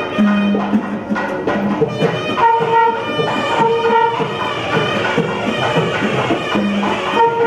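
Traditional South Indian temple music on a nadaswaram, the double-reed temple pipe, playing a melody in long held notes.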